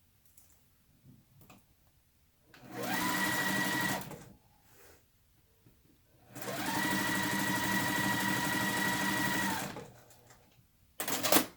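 Electric sewing machine stitching a patchwork seam in two runs, a short one and then one of about three seconds, the motor whine rising as it speeds up and falling as it stops each time. A brief sharp clatter comes near the end.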